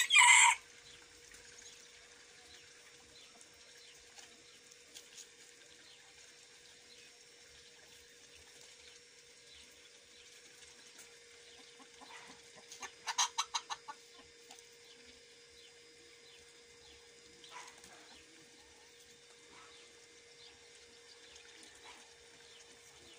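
The tail of a bantam rooster's loud crow cuts off about half a second in. Then chickens are mostly quiet over a faint steady hum, broken by a quick run of six or seven loud clucks about halfway through.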